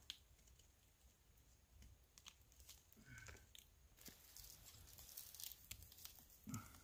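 Faint scraping and tearing as a knife blade cuts thin bracket fungi off a tree trunk's bark, in short irregular strokes that come thicker in the second half.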